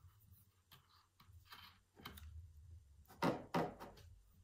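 Frame loom bumping and knocking against the desk as a yarn knot is tied and pulled tight on the warp, with two louder knocks a little past three seconds in.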